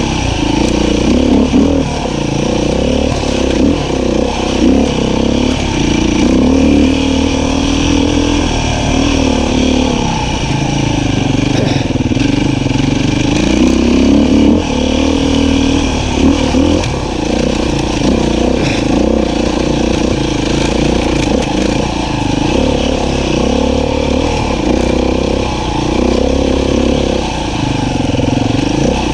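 Beta 500 RR-S single-cylinder four-stroke dirt bike engine running under load, its revs rising and falling continuously as it is ridden.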